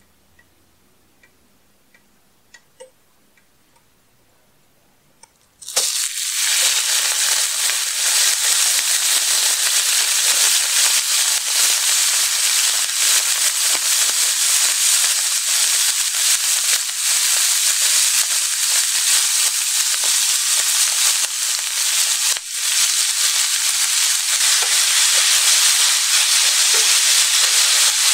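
Ground beef frying in hot oil in a saucepan: a few faint ticks, then about six seconds in a loud sizzle starts suddenly as the meat meets the oil and keeps going steadily.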